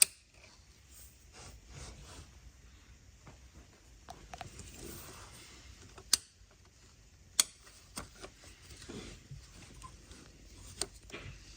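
A handful of sharp, irregular clicks and light knocks from hand tools and small metal parts being handled, the loudest two about six and seven seconds in, with quiet rustling between.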